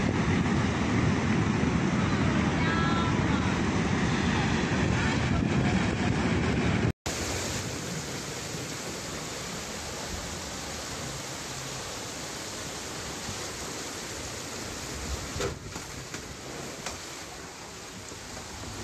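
Loud, dense rush of torrential muddy floodwater surging down a street. About seven seconds in it cuts to a quieter, steady rushing of water and rain heard from inside a car moving along a flooded road.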